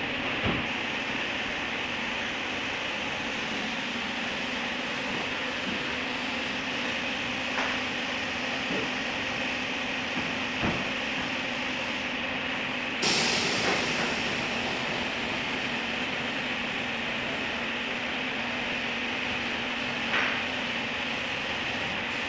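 Compressed-air paint spray gun hissing steadily as it sprays the repaired bumper corner, with a stronger burst of air about thirteen seconds in and a few light knocks.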